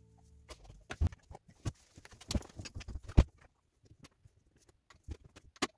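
Irregular clicks and knocks from a front-loading washing machine's controls being handled as a wash is set, with one sharper knock about three seconds in.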